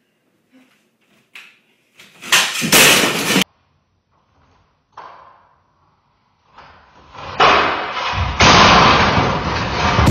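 A person falling from a home dance pole onto a wooden floor: a loud, noisy crash about two seconds in that cuts off suddenly, then a longer, louder crash from about seven seconds in. Weaker knocks come before them.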